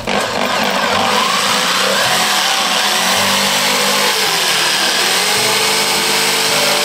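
Makita corded jigsaw cutting a curve through a wooden board, started from a drilled hole: a loud, steady buzz of motor and reciprocating blade whose pitch sags and recovers several times as the blade bites into the wood.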